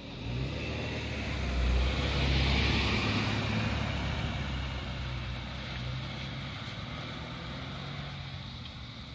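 A car driving past close by, its engine and tyre noise swelling to loudest about two seconds in and then fading as it moves away, over a low steady engine hum.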